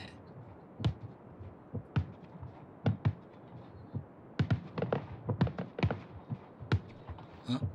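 Fireworks going off, with single bangs about once a second at first, then a quicker run of bangs and crackles from about four and a half seconds in.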